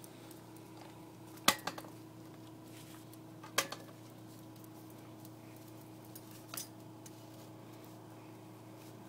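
A few sharp clacks, two of them loud with smaller clicks right after, and a brief scrape a few seconds later: a blue-and-gold macaw going at a plastic-handled push broom lying on concrete.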